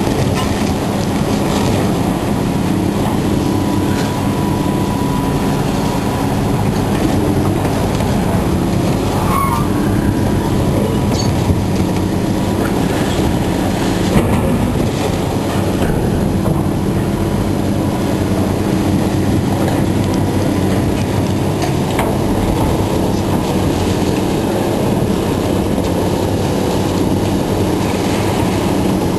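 Heavy scrapyard machinery running steadily under load while it breaks up an old truck body, with a thin high squeal of metal and a few sharp clanks about ten and fourteen seconds in.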